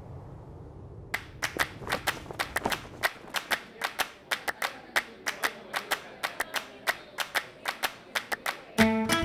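Scattered applause from a small audience: separate hand claps, several a second at uneven spacing, starting about a second in. Near the end, plucked-string music comes in.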